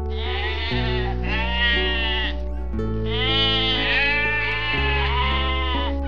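A flock of sheep bleating: several long, wavering bleats that overlap, with a short break about two and a half seconds in. Background music with a steady bass line plays underneath.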